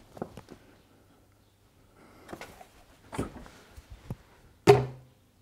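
Scattered metal clicks and knocks as a motorcycle shaft-drive final drive is worked free and lowered off the swingarm, ending in a loud knock with a short grunt near the end.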